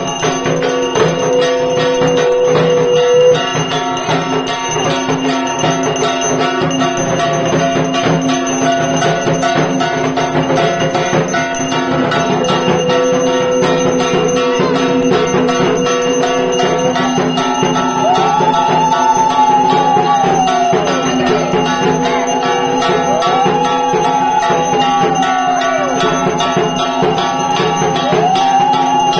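Music with a bell ringing continuously over it: long held notes, then from a little past halfway a repeating melody that sweeps up and falls away.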